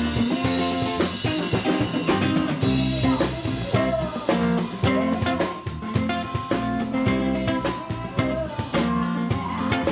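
Live band playing, with a drum kit keeping a steady beat under guitars.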